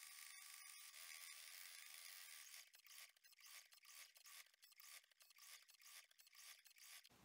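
Near silence: a faint thin hiss that turns choppy, flickering on and off, from about two and a half seconds in.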